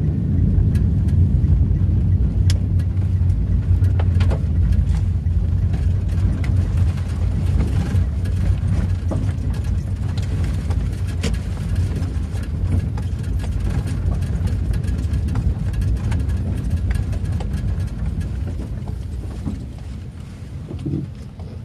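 Car running along a rough road, heard from inside the cabin: a steady low engine and tyre rumble with scattered small ticks, easing off over the last few seconds as the car slows.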